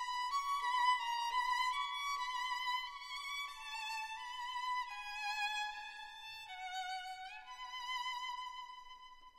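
Background music: a solo violin playing a slow melody of long held notes with vibrato. The line sinks lower through the middle, climbs back near the end and fades away.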